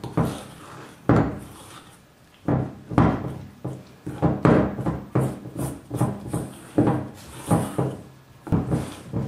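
A kitchen utensil stirring stiff flour dough in a stainless-steel bowl held on a wooden table: irregular knocks and scrapes, about one or two a second, as the dough is worked and the bowl bumps the tabletop.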